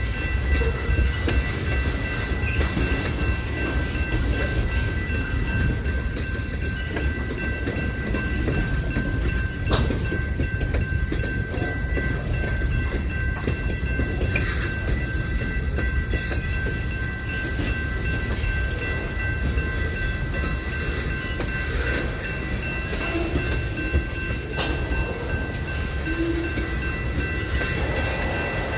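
Train rolling past with a steady low rumble of wheels on rails and a few sharp clacks over rail joints. A steady high-pitched ringing tone holds throughout.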